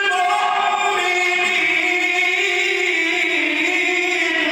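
A man's voice chanting the Quran in the melodic tajweed style, drawing out one long held vowel with slow turns of pitch that drift gradually lower.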